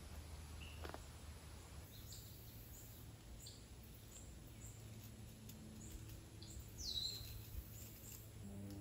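Quiet outdoor ambience with a bird repeating short, high, downward chirps about twice a second, and one louder downward-sweeping call about seven seconds in, over a low steady hum.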